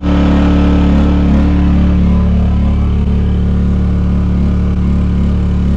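A motor running loud and steady at a constant pitch, with no rise or fall in speed. It starts and stops abruptly.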